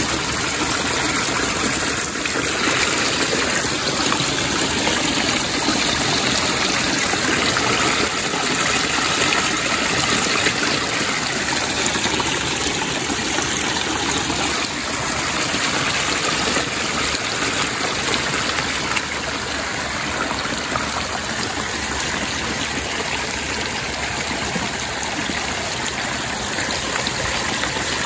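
Stream water flowing steadily, an even rushing trickle.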